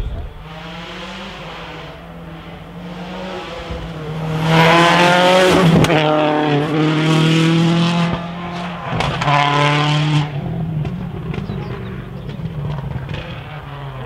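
Rally car engine at full throttle on a special stage, revving up through the gears. The pitch climbs, drops at each upshift and climbs again, loudest in the middle, then settles back to a lower, more distant drone.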